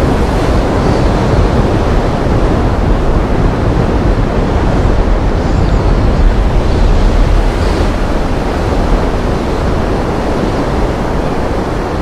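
Nafakhum waterfall on the Sangu river in monsoon flood: a large volume of muddy water pouring over the falls and rushing downstream in a loud, steady roar heavy in the low end.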